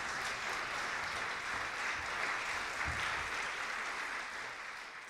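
Concert audience applauding, dying away near the end.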